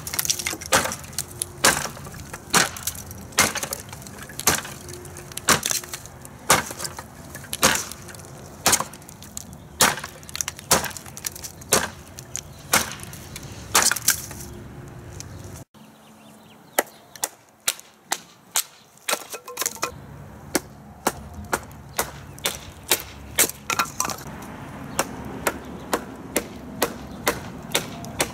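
Heavy 1095 carbon-steel kukri blade chopping repeatedly into dry wood, sharp strikes about two a second. There is a brief break just after halfway, and the chops come faster near the end.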